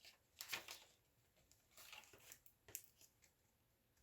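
Faint rustling of paper journal pages being handled, in a few short soft bursts.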